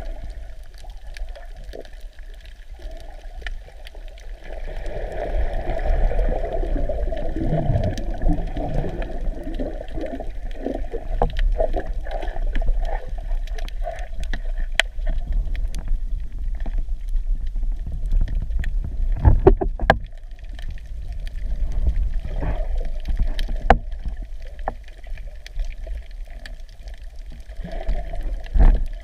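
Underwater sound of a snorkeller moving through the water: a steady muffled rumble, a stretch of bubbling gurgles about a fifth of the way in, and scattered sharp clicks. The loudest bursts come about two-thirds of the way in and near the end.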